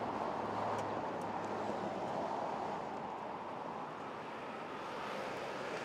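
Steady road traffic noise, a continuous rush with a low engine hum that fades out about halfway through.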